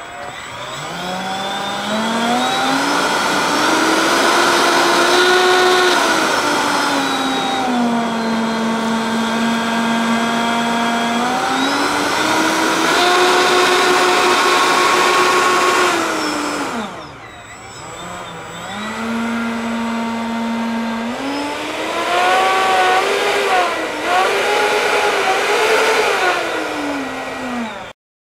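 Four 70 mm eleven-blade electric ducted fans on an RC model jet airliner whining as the throttle is worked up and down during a run-up and taxi. The pitch climbs over the first few seconds, eases back, and climbs again. It drops almost to idle about two-thirds of the way through, then rises and wavers once more before falling off and cutting out at the very end.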